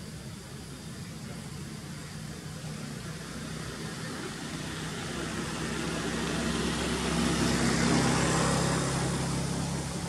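A motor vehicle's engine running with a steady low hum, growing louder to a peak about eight seconds in and then easing off as it passes.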